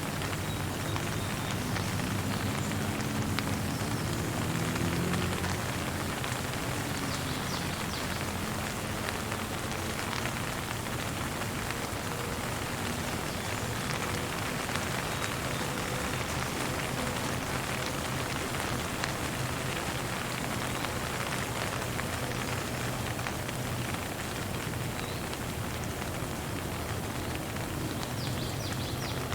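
Steady rain falling, an even hiss of raindrops on surfaces.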